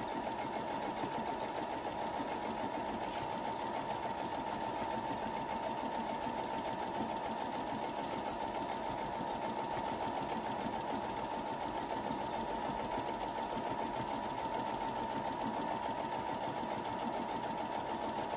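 Electric sewing machine running continuously at a steady speed, stitching through fabric, with a steady whine over the rapid needle chatter.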